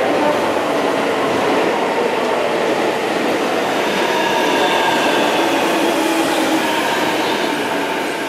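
Seibu 30000 series electric commuter train pulling into the platform and slowing, its traction motors whining in several gliding, falling tones over the rumble of its wheels on the rails.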